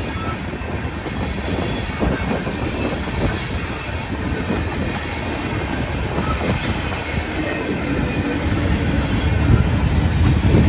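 Freight cars of a long CSX train rolling past: a steady rumble of steel wheels on the rails with clicks and clatter, growing louder near the end.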